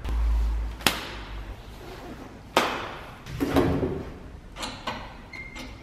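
Hard plastic parts clicking and knocking as they are handled in a car's engine bay: several separate sharp knocks a second or so apart, with a low rumble in the first second.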